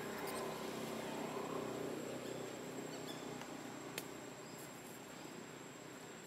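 Faint outdoor ambience with a thin, steady insect-like high tone and a low drone that fades over the first couple of seconds; a single sharp click about four seconds in.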